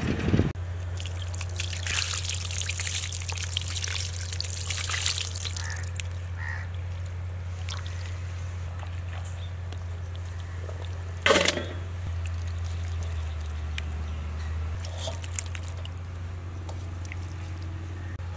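Water pouring and trickling as cleaned small fish are washed and handled by hand. There is one sharp, louder splash about eleven seconds in, and a low steady hum runs underneath.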